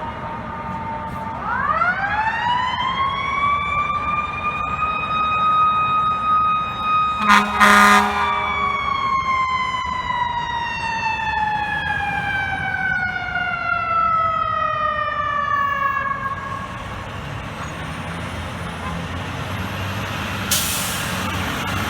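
Fire truck siren winding up to a steady wail, then slowly winding down over about eight seconds, with a short air horn blast about seven seconds in. A truck engine runs underneath, and a brief hiss comes near the end.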